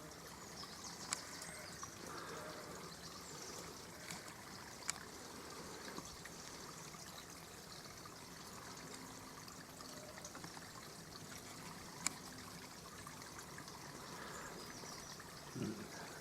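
Small stream trickling steadily, with a few brief sharp clicks.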